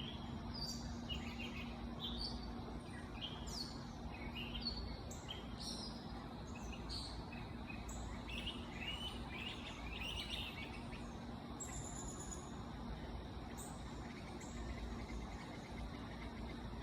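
Birds chirping: short, high, downward-sweeping chirps repeated every second or so, busiest around the middle, over a steady low background rumble.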